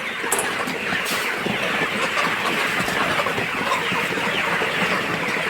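A large flock of young chickens clucking and chattering together in a steady, dense din.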